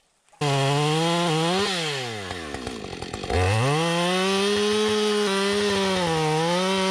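Two-stroke chainsaw cutting into the base of a standing spruce trunk, starting abruptly at full throttle. The revs drop away about two seconds in as it eases off. They open up again just over three seconds in and hold high through the cut, with a short dip near the end.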